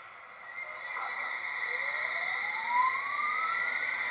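London Underground S Stock traction motor sound from a model train's DCC sound decoder, played through its small speaker: an electric whine rising steadily in pitch as the train pulls away, over a steady high tone.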